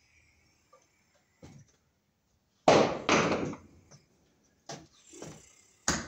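Knocks and a sharp crack of plastic as a knockout in a plastic electrical box is broken open for the cable to pass through. The loudest part is two quick cracks about three seconds in, followed by a few lighter knocks.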